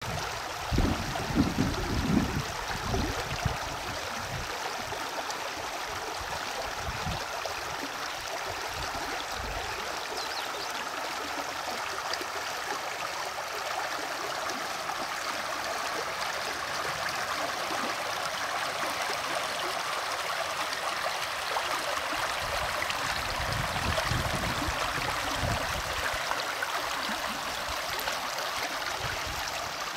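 A shallow river flowing steadily over stones and around logs, a continuous burbling rush of water through small riffles. Irregular low rumbles are loudest in the first few seconds and come back for a while near the end.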